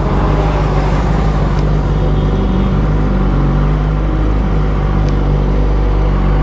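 Kawasaki ZX-10R's inline-four engine running at low, steady revs as the bike rolls slowly, heard from the rider's seat.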